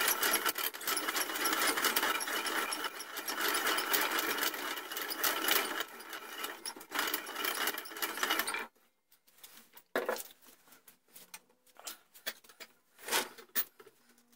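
Barrel-reaming rig running: the reamer cutting inside a steel rifle barrel with a steady, dense rattling chatter that stops abruptly about nine seconds in. A few scattered clicks and knocks follow.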